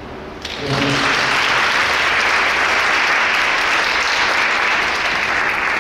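Audience applauding steadily, starting about half a second in as the last notes of the song die away.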